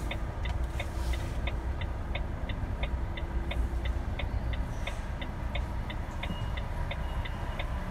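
A lorry's turn-signal indicator ticking steadily, about three clicks a second, inside the cab over the low rumble of the idling diesel engine.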